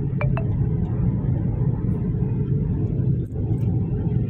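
A car running, a steady low rumble of engine and road noise. Two short, high rising chirps about a quarter second apart near the start.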